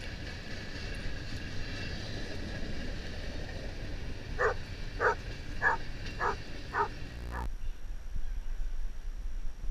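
A dog barking about six short times at a steady pace, roughly two barks a second, over the low rumble of a freight train. The rumble stops suddenly near the end.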